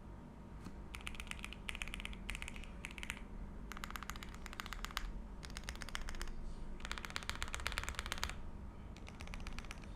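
Typing on a Zuoya LMK81 mechanical keyboard with lubed Everglide Aqua King v3 linear switches and Akko Cream PBT keycaps: quick runs of keystrokes broken by short pauses, about five runs in all.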